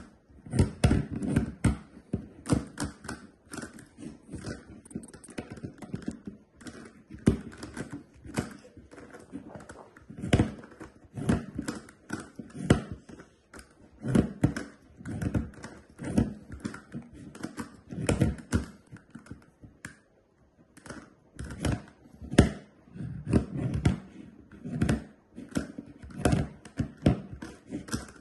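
GAN Megaminx, a plastic twelve-sided twisty puzzle, being turned with one hand as it rests on a wooden tabletop: irregular, rapid plastic clicks and clacks as its faces are turned.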